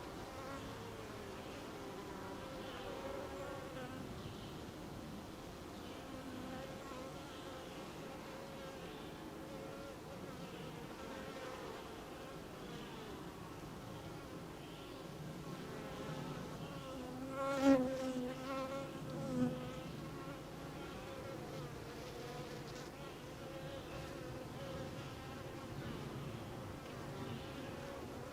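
Honeybees buzzing steadily around a hive, a continuous hum. About two-thirds of the way in, a bee passes close, giving a louder buzz twice in quick succession.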